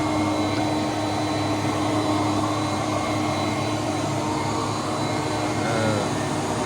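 Hoover Conquest upright vacuum cleaner running steadily: an even motor rush with a constant hum and a fainter high tone.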